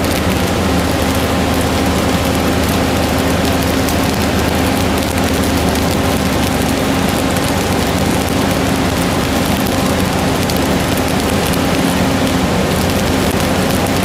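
Mobile flash butt rail welder in the flashing stage: the rail ends arc against each other in a dense, continuous crackle as sparks are thrown out. A steady low hum runs under it.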